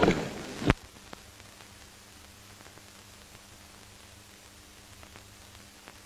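A sharp click under a second in, then a faint steady hiss with a low hum: the background noise of an old black-and-white film soundtrack.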